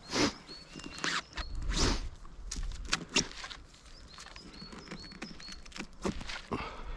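Footsteps scuffing over the ground at a walking pace, with a small bird giving short high chirps in runs of several notes in the background.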